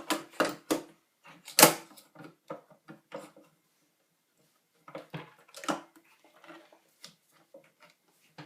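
Clicks and knocks of a hard drive and its metal parts being handled inside an open iMac G4, the loudest about a second and a half in; a short pause in the middle, then more clicking.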